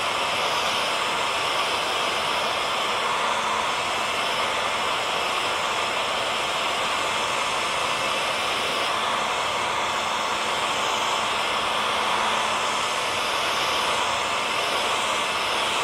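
Hair dryer running steadily: an even, rushing noise of blown air with a faint motor hum in it.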